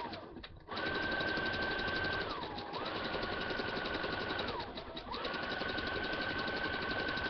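Computerized electric sewing machine stitching at speed, starting after a few clicks: a steady motor whine over a rapid run of needle strokes. It slows briefly twice and picks back up.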